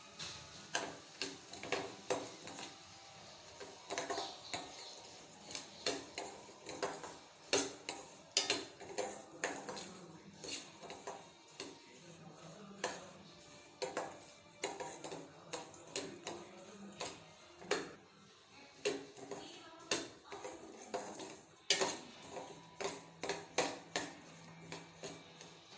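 Metal spoon or spatula clinking and scraping against a metal pan or bowl while food is stirred or mixed, with irregular knocks about once or twice a second.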